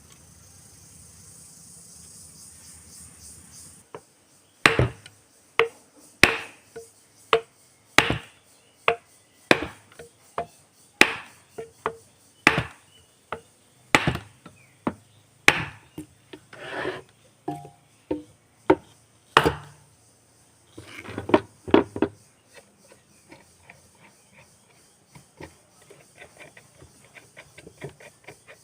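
Hammer striking a metal part over and over, a sharp knock with a short ring about every three-quarters of a second, some twenty blows in all. After these come a quick cluster of knocks and then lighter taps and clicks.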